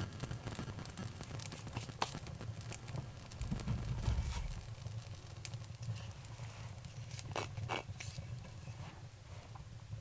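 Birch bark burning in an open wood-stove firebox, crackling with scattered small pops, while pieces of bark and kindling are handled and set on the flames. A dull low bump about four seconds in, and two sharper snaps a little after seven seconds.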